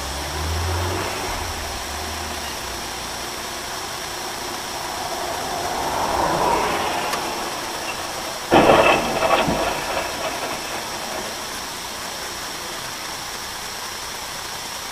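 Steady road and engine noise heard inside a moving car, broken about eight and a half seconds in by a sudden loud impact, with a second, smaller one about a second later.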